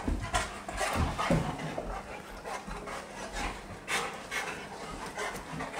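Dogs play-wrestling on carpet: irregular scuffling and rustling of bodies and paws, with the dogs' breathing and a few short low sounds.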